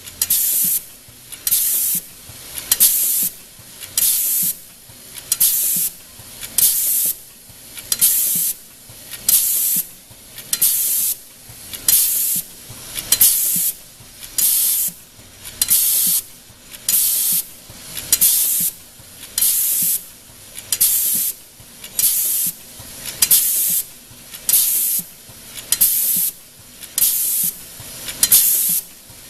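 Automatic lock-nut crimping machine cycling steadily, with a short hiss about once a second as it works through its strokes.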